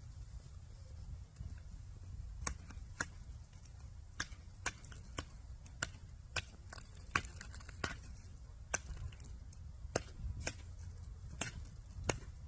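A run of sharp knocks or taps at an irregular pace, roughly one or two a second, starting a couple of seconds in, over a steady low rumble.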